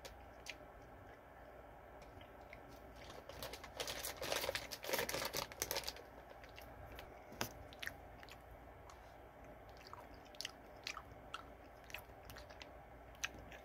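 A person chewing HARIBO Sour Bats gummy candy, with scattered wet mouth clicks that come thickest a few seconds in and then thin out.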